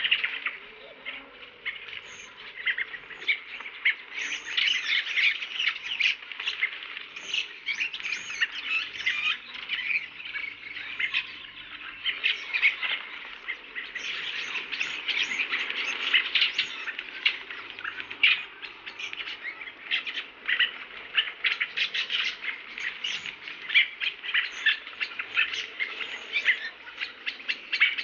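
Many birds chirping and chattering at once, a dense run of short high calls.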